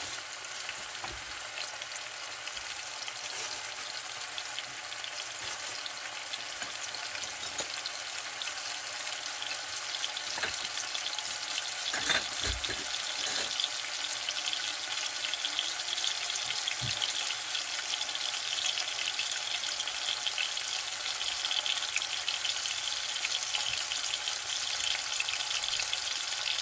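Slices of hanwoo (Korean beef) sirloin frying in olive oil in a pan, a dense crackling sizzle that grows steadily louder as the pan heats and the meat sears on its first side. A few dull knocks come about halfway through.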